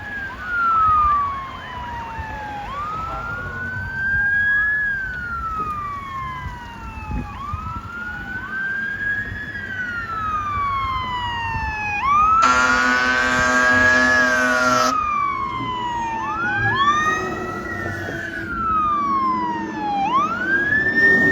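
Fire engine sirens wailing, two of them overlapping, each rising quickly and falling slowly every few seconds, over a low rumble. About twelve seconds in, a fire truck air horn blasts once for about two and a half seconds.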